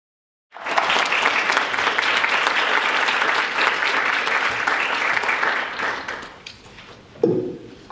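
Audience applauding in a lecture hall. The applause starts abruptly about half a second in and dies away after about six seconds, followed by a short sharp sound near the end.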